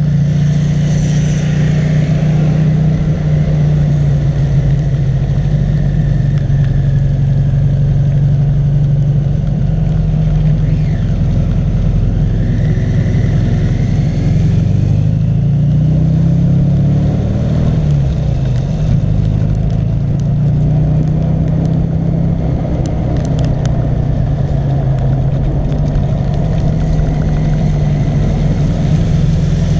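Rewaco trike's engine running steadily under way, its note falling and rising again midway.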